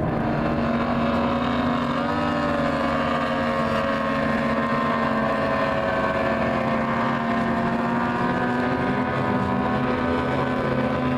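Several outboard race boats running flat out in a pack, their engine notes layered at slightly different pitches and drifting a little as they pass. Light wind noise on the microphone.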